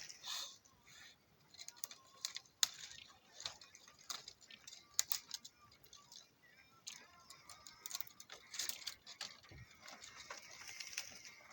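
Scattered small clicks, cracks and scrapes of someone climbing a tree, among its bark and small branches.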